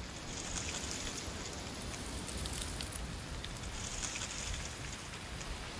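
Wind blowing through autumn trees, with dry leaves rustling and skittering in a steady crackle that swells about a second in and again around four seconds, over a low rumble of wind.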